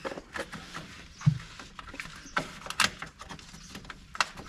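Hands working in a utility vehicle's engine bay around the fuel filter and its lines: a string of irregular clicks, knocks and small rattles of hoses, clips and plastic parts, with one dull thump about a second in.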